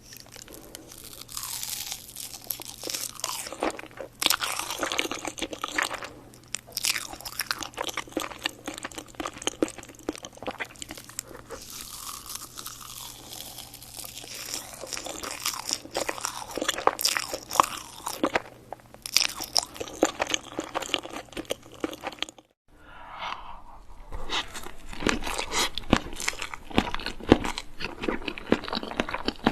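Close-miked eating of crunchy cake or pastry: irregular bites and crunching chews, dropping out briefly about 22 seconds in and then starting again.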